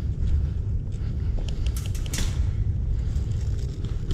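Low rumbling of wind and handling noise on a body-worn camera's microphone as the wearer moves, with a few short clicks and knocks about one and a half to two seconds in.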